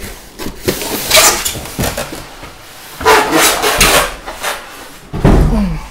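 Expanded polystyrene packing blocks squeaking and creaking as they rub and are pulled off an electric scooter, in three loud scraping bursts, the last ending in a falling squeak.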